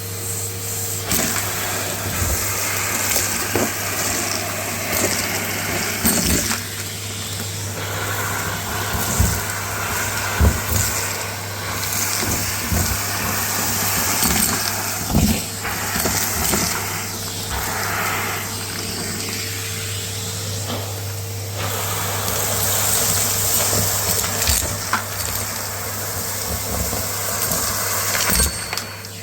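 Numatic Hetty canister vacuum running steadily while sucking up a crunchy dry dirt mix, with a constant crackle and irregular sharp ticks of grit rattling up the tool and hose.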